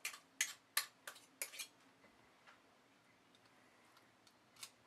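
Light, sharp metal clicks of a metal ice cream scoop knocking and scraping against a stainless steel mixing bowl while scooping a thick, dough-like mix: about six quick clicks in the first second and a half, then a couple of single clicks, one near the end.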